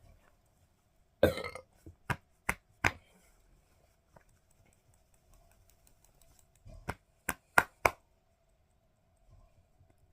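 A person burps once, briefly, about a second in, followed by two quick runs of sharp clicks, about four each.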